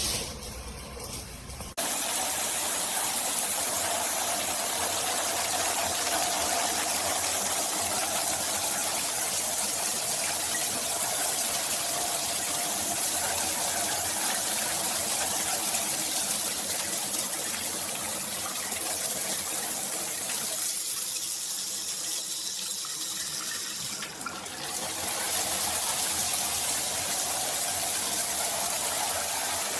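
Water from a rainfall shower system spraying steadily, an even hiss of falling water. It dips briefly near the start and again about three-quarters of the way through.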